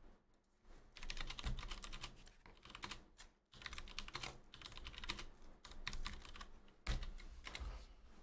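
Rapid typing on a computer keyboard: two runs of quick keystrokes with a short break about three and a half seconds in, and a heavier knock about seven seconds in.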